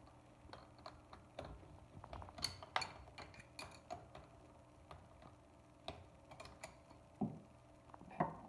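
Light, irregular metallic clicks and taps of hand work on the CNC spindle as the flat end mill is loosened and pulled from its collet, with a cluster of quick clicks about two and a half seconds in and a few more near the end.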